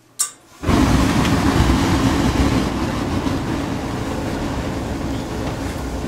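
Gas conversion burner lighting off: a sharp click, then about half a second later the main burner ignites all at once and burns steadily with a loud, even rush of flame.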